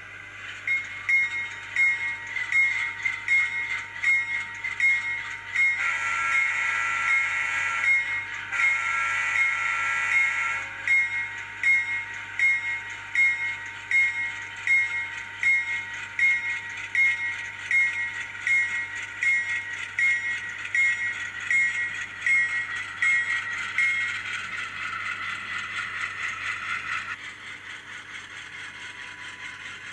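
ESU LokSound 5 sound decoder in an N-scale GE P42 model diesel locomotive playing its sounds. The locomotive bell rings about once a second for most of the time, and two long horn blasts come about six and nine seconds in, over a steady diesel engine sound. The bell stops a few seconds before the end.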